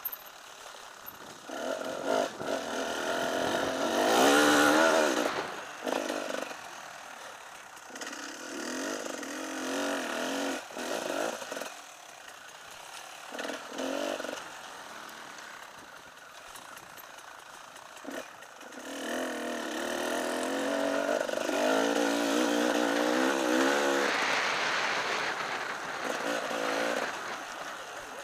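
Enduro motorcycle engine heard from the rider's onboard camera, revving up hard in surges and easing off between them, the pitch wavering over the bumps of the track. The loudest surges come about four seconds in and again from about nineteen to twenty-seven seconds.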